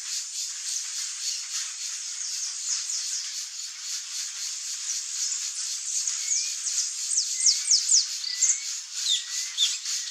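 Saffron finch calling: a quick run of sharp, high, falling chirps in the second half, with a few faint short rising whistles lower down, over a steady hiss.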